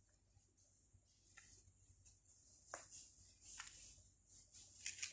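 Near silence with a few faint, short rustles of cloth being handled, coming a little more often toward the end.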